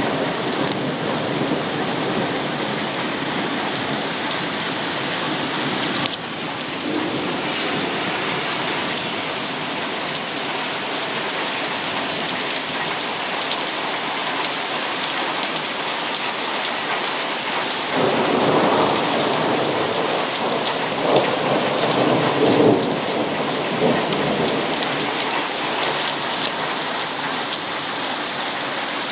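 Heavy thunderstorm rain pouring steadily, with a louder roll of thunder about two-thirds of the way through.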